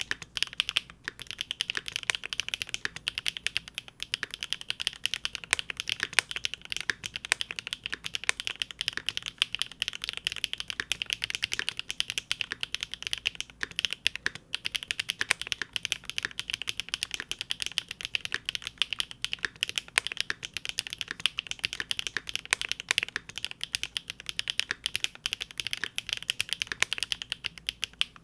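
Steady, fast typing on a Linworks Big Whale custom mechanical keyboard with GEON Raw Zero switches on a polycarbonate plate, a dense run of keystrokes broken only by a couple of brief pauses.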